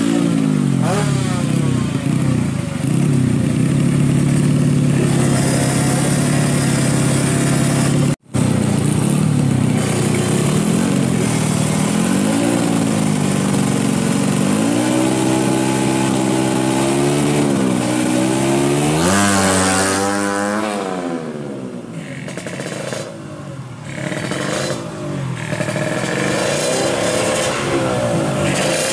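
Tuned 115cc moped engine with a standard carburettor and CDI, running through a racing exhaust and being revved in repeated blips that rise and fall. It cuts out briefly about eight seconds in. It climbs to one high rev near the middle, then runs on more unevenly as the bike pulls away.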